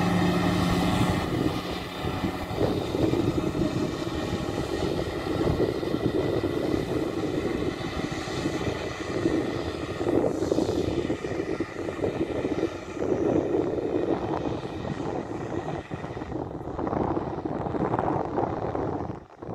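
Studebaker US6 6x6 army truck's Hercules straight-six petrol engine driving through soft riverbed sand. The engine note is steady for the first second, then turns rougher and rises and falls as the truck pulls across the sand.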